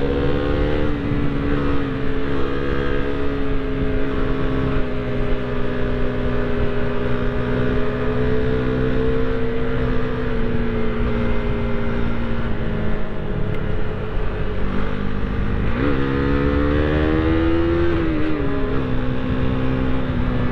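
Husqvarna Svartpilen 401's single-cylinder engine pulling steadily at speed, with wind rushing over the microphone. About sixteen seconds in, the revs climb for a couple of seconds, then fall away.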